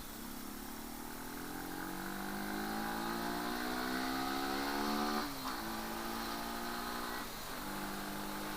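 Motorcycle engine pulling through the gears: its pitch rises steadily for about five seconds, drops suddenly at a gear change, holds steady, dips briefly again near the end, then runs on evenly.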